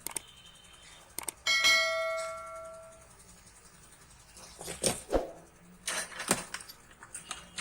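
A small metal object is struck or set down about one and a half seconds in and rings with a clear bell-like tone that fades over about a second and a half. Scattered clicks and knocks of tools and parts being handled follow.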